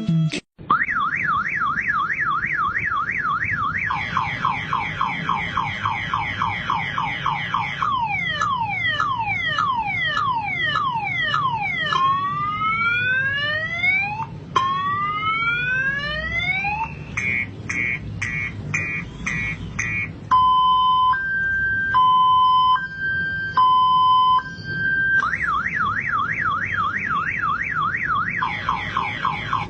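Motorcycle alarm siren cycling through its tone patterns. It goes from a fast warble to falling sweeps, then rising whoops, rapid beeps and a two-tone hi-lo, then back to the warble. It cuts off near the end.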